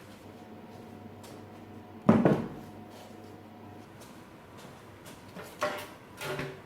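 Workshop handling noises as a trike is being stripped down: one sharp knock about two seconds in, then two shorter clunks near the end.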